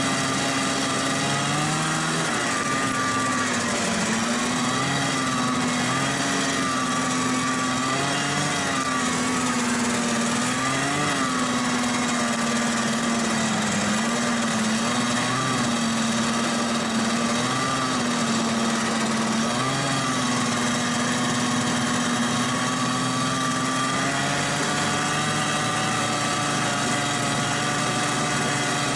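Snowmobile engine heard from on board while riding. Its pitch rises and falls every second or two as the throttle is worked over uneven snow, then holds steadier, rising slightly near the end.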